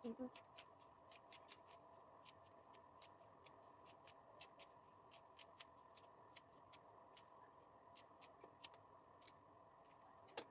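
Faint, irregular crackling clicks, a few each second, from cooking at the stove, over a steady low hum.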